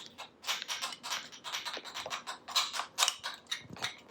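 A utensil stirring a sauce in a bowl, with rapid, repeated clicking and scraping against the bowl's side.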